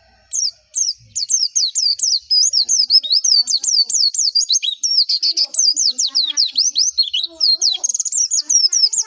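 White-eye (pleci) singing a long, fast twittering song of high, quickly sweeping notes, about five a second, starting just after the beginning.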